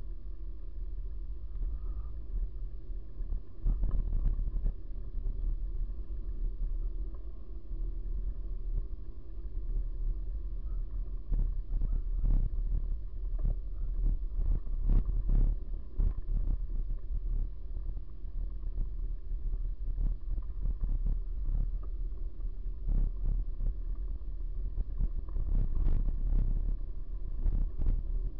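Bicycle rolling over rough, patched asphalt, heard through a camera mounted on the bike: a steady low rumble with irregular knocks and jolts, which come thickest in the middle and again near the end.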